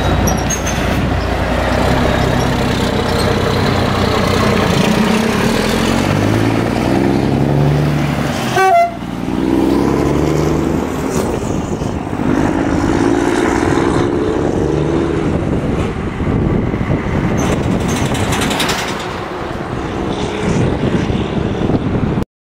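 Volvo FH 500 truck's straight-six diesel on an open, free-flowing MARRO exhaust, pulling away and accelerating through the gears: the deep engine note climbs in pitch and drops back at each gear change, several times over.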